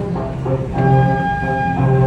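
Instrumental music: long held melody notes over a low bowed bass line.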